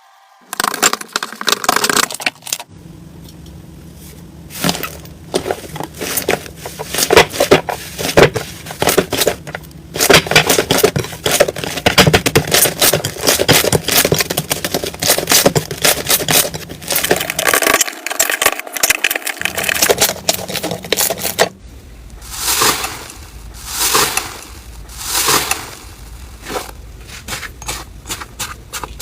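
Slime being worked and pressed, crackling and popping densely. About two-thirds of the way in it changes to slower, rhythmic squishing strokes, roughly one every second and a half.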